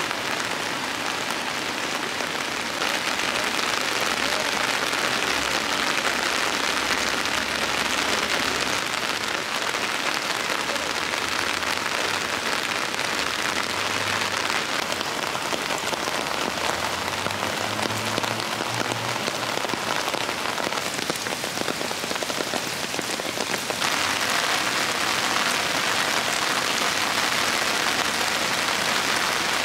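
Steady heavy rainfall, an even hiss of rain on wet ground and foliage that grows louder about three seconds in, eases off in the middle and swells again near the end.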